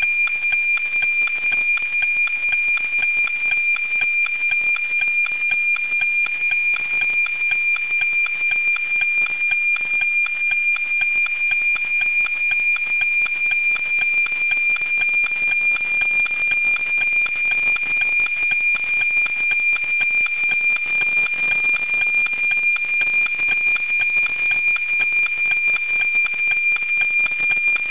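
NOAA-19 weather satellite APT signal received on an RTL-SDR and FM-demodulated to audio: a steady high tone with regular rhythmic ticking from the image line sync, mixed with hiss as the satellite rises low over the horizon.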